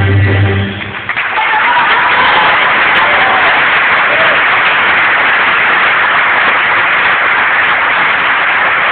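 Stage music ends on a held note about a second in, then an audience applauds loudly and steadily, with a few cheering voices early in the applause.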